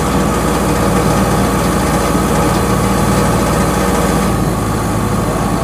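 Kubota DC70 combine harvester's diesel engine running steadily, its tone changing slightly about four seconds in.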